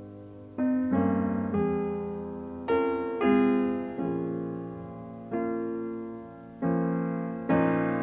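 Slow solo piano music: chords struck every second or so, each left to ring and fade.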